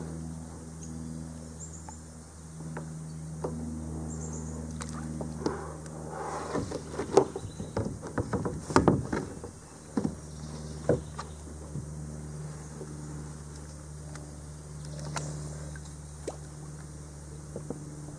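A steady, low engine drone, likely a propeller plane overhead, runs throughout. Over it, paddle and fishing gear are handled against the plastic kayak, giving a cluster of knocks and rattles through the middle, the loudest about halfway.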